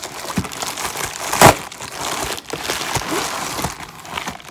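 White packing paper crinkling and rustling as it is pulled off a small jar, with a sharp loud crackle about a second and a half in.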